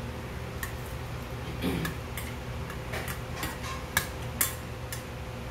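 Metal chopsticks clicking and scraping against a stainless steel bowl at irregular intervals while mixing jjajangmyeon noodles. The two sharpest clinks come about four seconds in, over a steady low hum.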